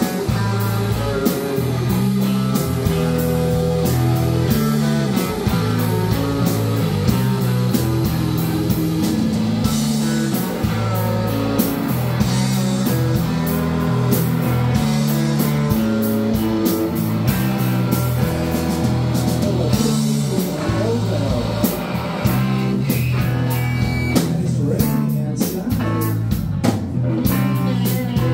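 A live rock band playing a song: electric guitars and an electric bass over a drum kit, with a steady beat and a repeating bass line.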